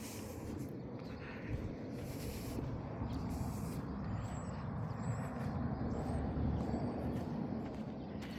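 Outdoor background rumble, low and steady, swelling somewhat past the middle and then easing, with a few faint high chirps in the middle.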